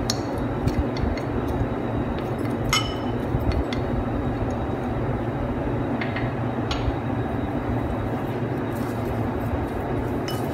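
A few sharp clinks of crockery as spice is scraped from a small ceramic plate into a ceramic bowl and stirred in with a wooden spoon; the loudest, about three seconds in, rings briefly. A steady low background rush runs underneath.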